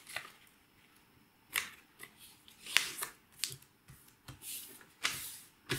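A square of green origami paper being folded and pressed into creases by hand: a run of short, sharp paper crackles and swishes at uneven intervals, starting about a second and a half in.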